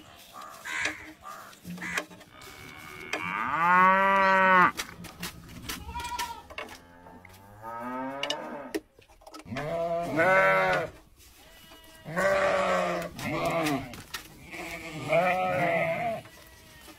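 Sheep and goats bleating in a series of long, wavering calls, about five in all, the loudest about four seconds in.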